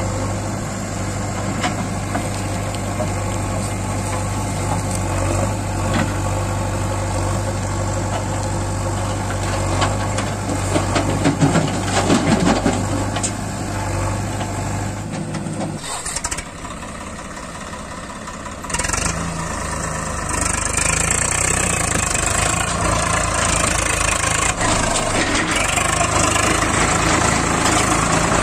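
Diesel engines running at idle, a farm tractor and a backhoe loader, with a stretch of clattering about ten to thirteen seconds in. The sound dips about sixteen seconds in, then from about nineteen seconds the Swaraj 744 FE tractor's three-cylinder diesel is heard close up, louder and hissier.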